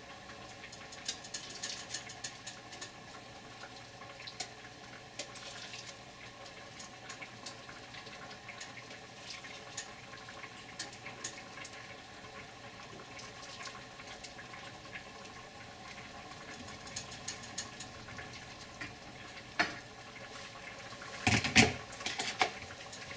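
Hot chicken stock being ladled from a pot into a small blender jar: liquid pouring and splashing with light clinks of the ladle, over a steady background hum. Near the end there is a louder clatter as the blender jar is handled.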